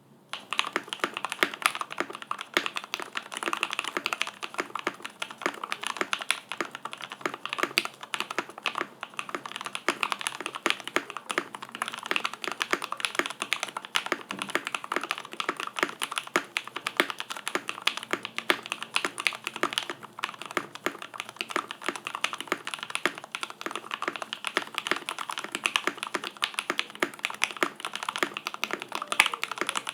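Continuous fast typing on a mechanical keyboard with lubed vintage Cherry MX Black linear switches in an aluminium plate, topped with Cherry POM keycaps: a dense stream of key clacks, starting about half a second in.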